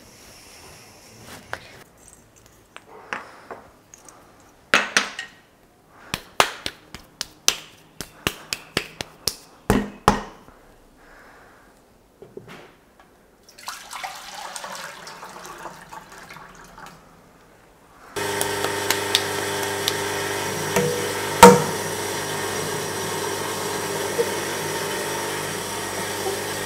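Wet clay worked by hand with a series of sharp slaps and knocks, then water poured from a bucket into a pottery wheel's splash pan. An electric pottery wheel then starts suddenly and runs with a steady hum for the rest of the time, with one loud slap of hands on the clay as it is centred.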